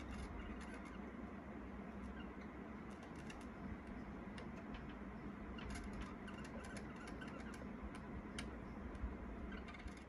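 Faint scattered ticks and scratches from budgerigars in a wire cage, over a steady low hum. The ticks come in small clusters, thickest in the second half.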